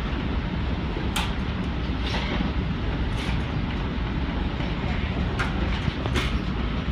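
Amtrak Acela train running: a steady low rumble with several brief sharp clicks and rattles.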